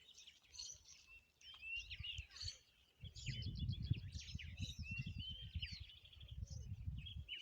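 Several small birds chirping and calling, with a short rapid trill about three seconds in. A low rumbling noise comes in about three seconds in and stops just before the end.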